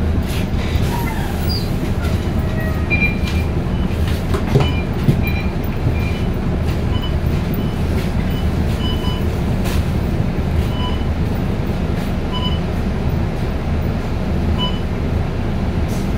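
Inside an MAN NG363F articulated bus with a Voith DIWA D864.5 automatic gearbox: a steady drone from the diesel drivetrain and road noise while the bus is under way. Scattered cabin rattles and knocks come through, the loudest about four to five seconds in.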